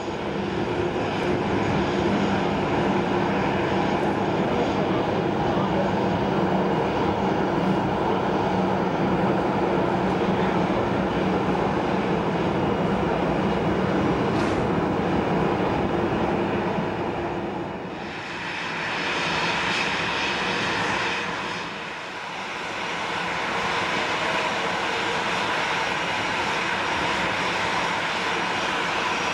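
Boeing 737-800's CFM56-7B jet engines running at taxi idle, a steady hum with a whine. About 18 seconds in the sound dips and turns hissier for a few seconds, then settles back to a steady run.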